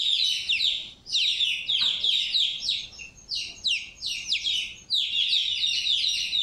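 A two-week-old chick held in the hand for an eye-drop vaccination, peeping loudly in a rapid string of falling chirps, the distress calls of a chick being handled, with brief pauses about a second and three seconds in.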